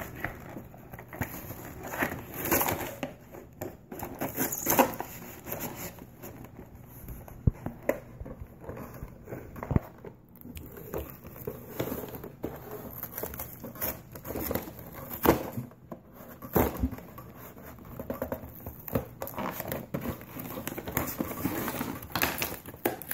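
Toy packaging being handled and pulled at: crinkling and rustling with irregular clicks and knocks.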